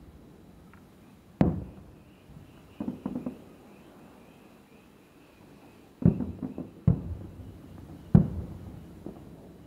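Distant firework shells bursting: a sharp bang about a second and a half in, a quick cluster of smaller pops around three seconds, then more bangs near six, seven and eight seconds, each trailing off in an echo.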